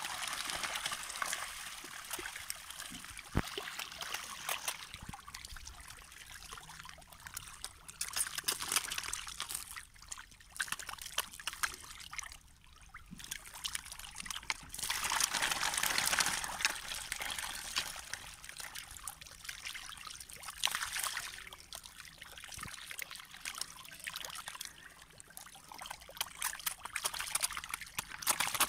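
A crowd of catfish splashing and thrashing in the shallows while feeding: a continuous wet splashing full of small slaps, swelling louder several times.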